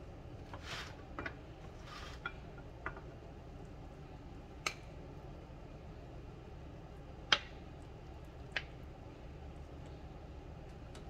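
A utensil scooping hot shepherd's pie out of its dish: two soft scrapes in the first couple of seconds, then scattered clinks of the utensil against the dish, the loudest about seven seconds in.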